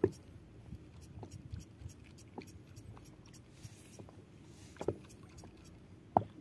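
Handling of a spinning rod and reel on a boat: a few sharp clicks and knocks over a faint steady background, the clearest at the start, about five seconds in and near the end.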